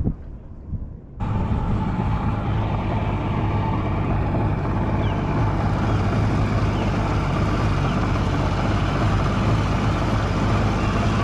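Boat running under outboard power: a steady low engine hum under rushing noise, starting abruptly about a second in.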